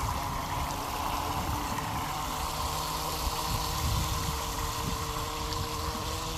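Electric scooter riding through water on a wet path: a steady hiss of tyre spray, with wind rumbling on the microphone.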